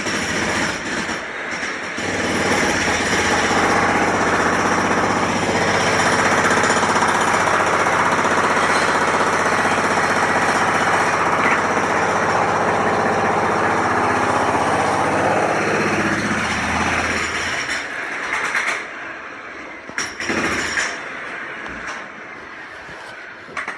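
Jackhammer running steadily and loudly, stopping about three-quarters of the way through. Scattered sharp knocks follow.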